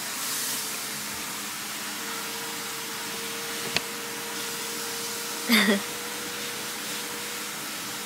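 Steady hiss with a faint steady hum, broken by one sharp click a little under four seconds in and a short vocal sound about five and a half seconds in.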